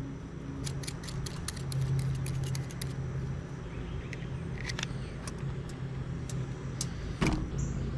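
Quick clicks and small rattles of fishing tackle being handled while a rod and reel are rigged, a flurry of them early on and scattered ones later, over a steady low hum.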